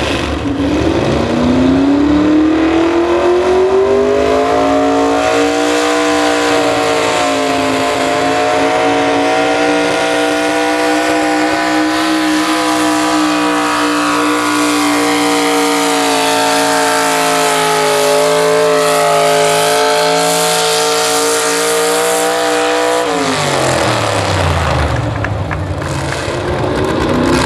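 Pro stock mini pulling truck's engine at full throttle hauling a sled. The revs climb over the first few seconds, hold high and wavering for most of the run, then drop steeply near the end as the pull ends, before rising again just before the end.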